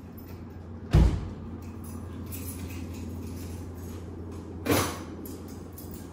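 Two heavy thumps about four seconds apart, the first the louder, over a steady low hum.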